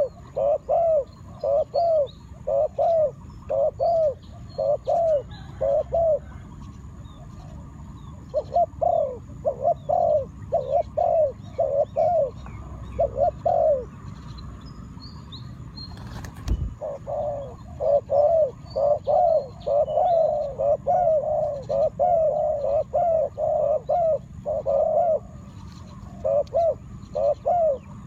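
A bird calling in long runs of short, low, cooing notes, about two a second, with brief pauses between runs. A single sharp knock comes a little past the middle.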